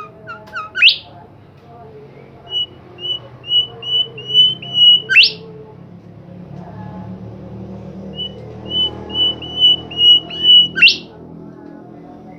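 A songbird of the kind Indonesian keepers call 'Bimoli' singing: two phrases of short, repeated high whistled notes that grow louder, about two a second, each ending in a loud rising sweep. A faint low hum runs underneath.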